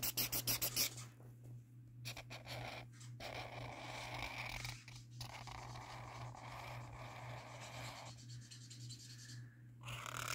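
Felt-tip marker colouring on sketchbook paper: quick back-and-forth scribbling strokes, several a second, for about the first second, then longer scratchy strokes broken by brief pauses.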